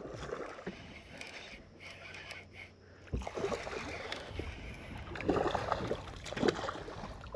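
Hooked redfish splashing and thrashing at the water's surface beside the boat while being reeled in, with louder splashes about three seconds in and again around five seconds.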